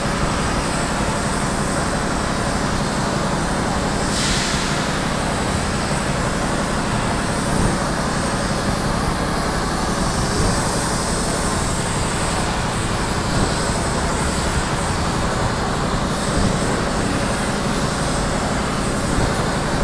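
Gas torch flame heating the rim of a dented motorcycle wheel for straightening: a steady, unbroken hiss-roar.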